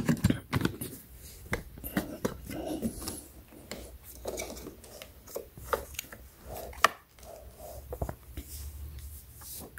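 Handling noise from the molded plastic case of an ECOXGEAR Boulder Bluetooth speaker: a sharp click at its side battery-door latch near the start, then scattered knocks and rubbing as the speaker is gripped and turned around.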